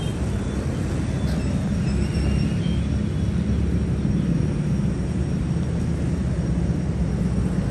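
Diesel engine of a Petter-type self-start generator running steadily at constant speed, with a low, rapid beat.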